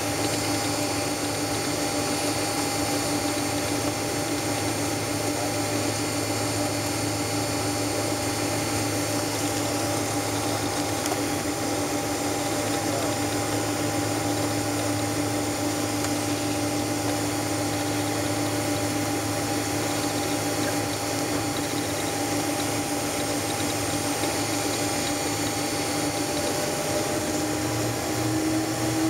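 Steady cabin noise inside a Boeing 767-300 on the ground with its engines at low power: an even rush of air and engine sound with a constant hum of several steady tones. Near the end one tone steps slightly higher.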